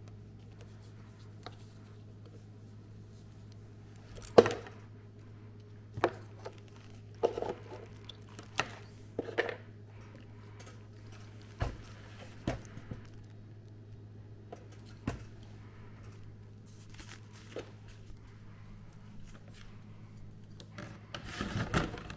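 Handling noises as a toaster's power cord is unwound and the toaster and its packing are moved about on a stone countertop: scattered clicks and knocks, the loudest about four seconds in, and a stretch of rustling near the end, over a steady low hum.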